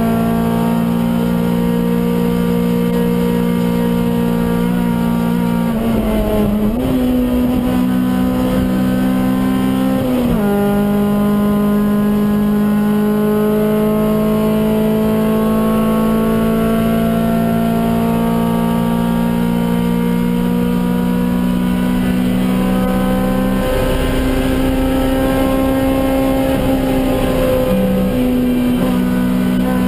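Honda Civic EG6's stock B16A 1.6-litre DOHC VTEC four-cylinder engine running hard at high revs, heard from inside the cabin. The engine note dips and changes pitch briefly twice, about six and ten seconds in, then holds steady.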